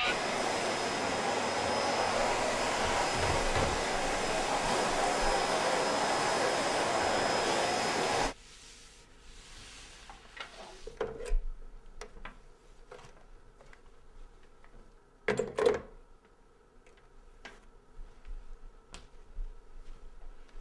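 Canister vacuum cleaner running with a steady high whine, cutting off suddenly about eight seconds in. Then quiet handling and wiping sounds, with a pair of louder knocks a little past the middle.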